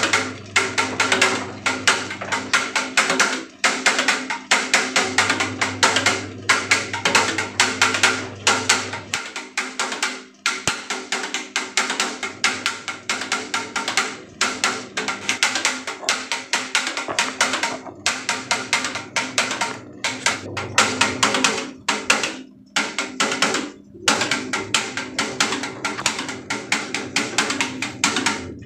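A group of propeller fans running together, with a dense, irregular clatter of small knocks over a steady low hum.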